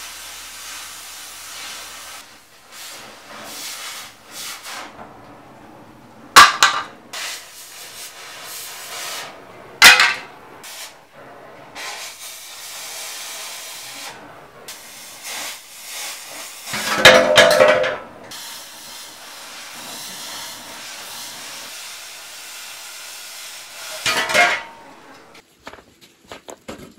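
Oxy-fuel cutting torch hissing steadily as it cuts through rusted steel on an old Jeep frame, with sharp loud cracks about six, ten and twenty-four seconds in. A longer, louder metallic clatter with a ringing note comes at about seventeen seconds.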